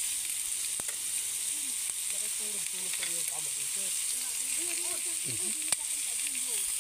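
Pork slices sizzling steadily on an electric grill pan, with a few sharp clicks of metal tongs on the grill as the pieces are turned; the loudest click comes near the end.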